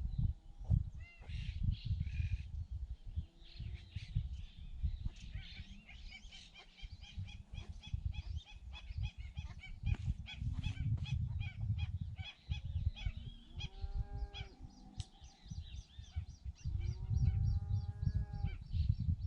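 Birds calling. A long run of quick, high repeated notes comes in the middle. Later there are two groups of longer arched calls, all over a steady low rumble.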